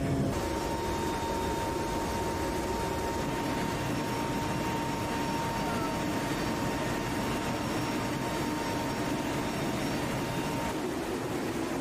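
Cargo hold of a C-130 Hercules in flight with the rear ramp open: a steady rush of wind and four-turboprop engine noise, with a thin steady whine that stops near the end.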